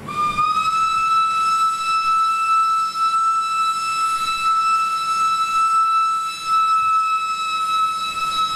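Steam whistle of a Japanese-built steam locomotive (1949–50) sounding one long single-note blast. It rises slightly in pitch as it opens and then holds steady and loud.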